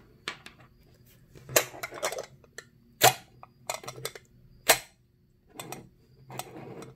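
Plastic clicks and knocks as a petri dish is pushed into a 3D-printed holder and set down on a wooden tabletop. It is a string of separate sharp taps, the loudest about a second and a half, three and four and a half seconds in, with softer scraping handling noise near the end.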